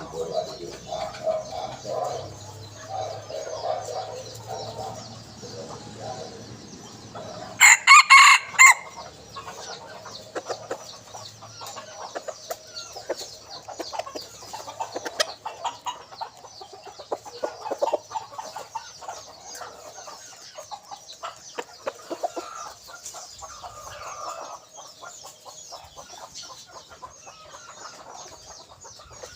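Red junglefowl rooster giving low clucks, then one short, loud crow about eight seconds in, followed by softer clucking and scattered clicks.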